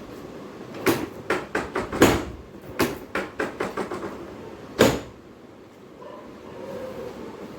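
A quick run of a dozen or so sharp knocks and slaps over about three seconds, then one louder knock a second later.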